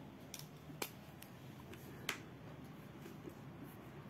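Faint handling clicks and taps from a pen and hand at a paper textbook page: three sharp clicks in the first two seconds over low room hiss.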